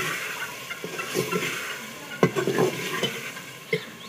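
A steel ladle stirring and scraping onions frying in oil in an aluminium cooking pot, clinking against the metal, with a light sizzle underneath. The sharpest knock comes about two seconds in.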